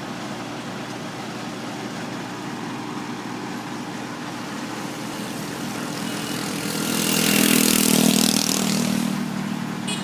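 Heavy-equipment engine running steadily, swelling louder with a rush of hiss from about seven to nine seconds in, then easing back.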